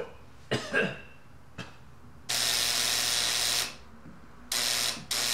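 Wall intercom door buzzer sounding in steady buzzes: one long buzz of over a second, then a shorter one, with a third starting right at the end. A visitor is ringing to be let in.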